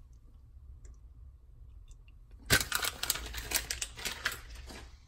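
Foil blind-bag packet crinkling as it is handled. The crackle starts suddenly about halfway through and runs as a dense crackle until shortly before the end.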